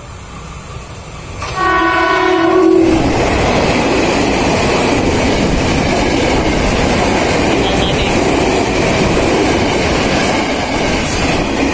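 A KRL Commuter Line electric train sounds its horn once for about a second as it approaches, then passes close by at speed with a loud, steady rush of wheels on rail and running gear.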